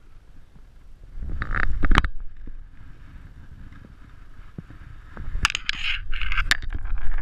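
Water splashing and sloshing as a largemouth bass held by the lip at the surface is released and kicks away, in two bursts: about a second in and again from about five seconds in. A low rumble on the microphone comes with the first burst.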